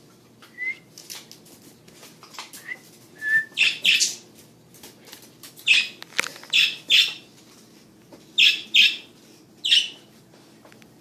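Pet parakeets giving short, harsh chirps and squawks in scattered bursts. A few thin, clear chirps come in the first few seconds, and louder clusters of calls come around the middle and near the end.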